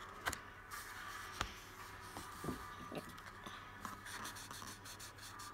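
Faint scratching of a magic-ink felt-tip marker colouring on a paper colouring-book page, with a couple of light clicks in the first two seconds.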